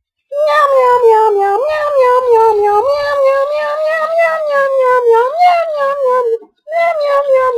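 A long, wavering animal howl held for about six seconds, its pitch sliding up and down; it breaks off briefly near the end and starts again.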